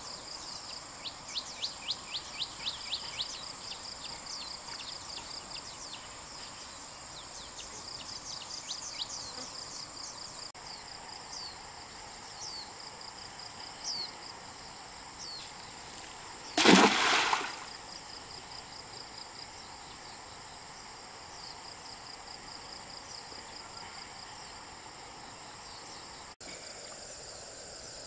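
Insects, crickets among them, calling with a steady high-pitched ringing, with a run of quick chirps, about four a second, near the start. About two-thirds of the way through comes a brief, loud rush of noise.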